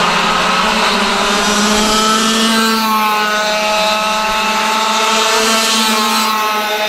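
Racing kart engines running hard, several at once, their pitch climbing and falling as they accelerate and lift.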